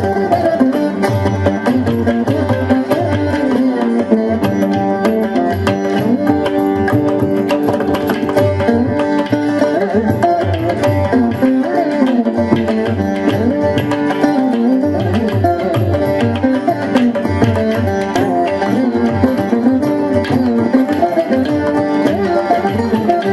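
Background music: a veena playing a melody that slides and bends between notes, over a steady hand-drum rhythm.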